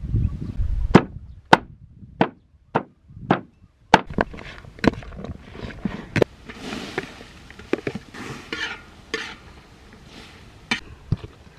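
Repeated chopping strikes with a knife: about six evenly spaced chops roughly every 0.6 s, then more irregular chops mixed with rustling.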